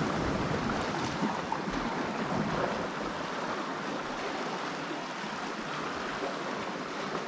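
Calm sea washing against the rocks, a steady soft hiss of water with a couple of faint ticks.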